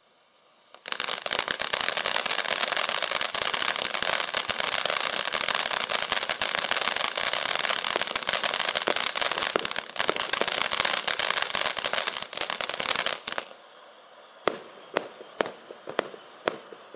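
Ground fireworks fountain burning: a dense, loud crackling hiss starts about a second in and goes on for about twelve seconds, then drops away to separate sharp pops about two a second.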